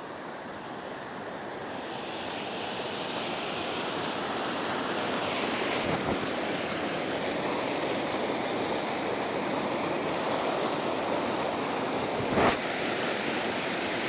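Small mountain waterfall splashing and rushing over a rock face, growing louder over the first few seconds as it is approached, then steady. A short thump stands out near the end.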